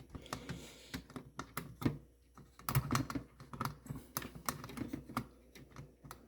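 Quick, irregular clicks and taps of a sheet-metal hard-drive plate and the surrounding plastic and metal parts of a Ricoh Aficio SP 5210SR laser printer being handled as the plate is worked loose.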